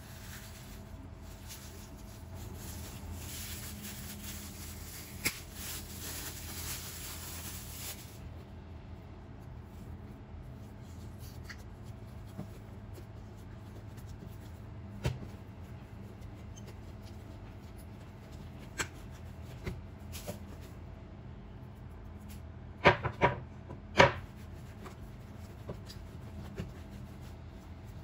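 Plastic bag crinkling as a ball of bread dough is taken out of it, then soft rubbing and pressing of hands working the dough flat and rolling it up on a countertop. A few sharp knocks on the counter about three-quarters of the way through are the loudest sounds.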